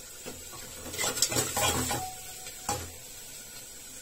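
Metal ladle clinking against steel cookware: a quick run of clinks about a second in, a short metallic ring, then one more clink near the end.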